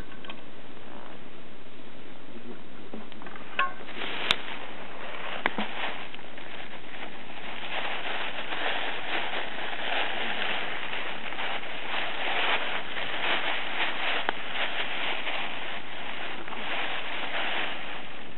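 Campfire of dry wood crackling: a few sharp pops about four and five seconds in, then dense, irregular crackling over a steady hiss.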